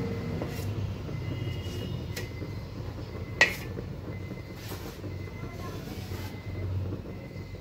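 Wooden spatula scraping and tapping on an iron tawa as rotis are pressed and turned, with a sharp knock about three and a half seconds in, over a steady low rumble.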